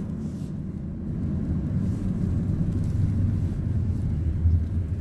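Steady low rumble with no distinct clicks or pops, like road noise heard inside a moving vehicle.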